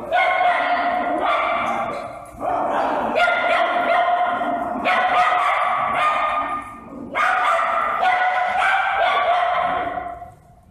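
Dogs barking and yapping loudly in four stretches of about two seconds each, with short breaks between.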